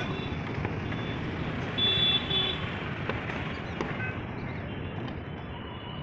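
Road traffic noise from the street below, with a vehicle horn sounding briefly about two seconds in.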